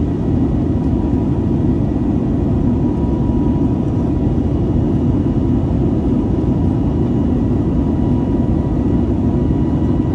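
Steady in-flight cabin noise of an Airbus A320neo heard from a window seat beside its CFM LEAP-1A engine: a loud, even rumble of engine and airflow with a faint steady high whine on top.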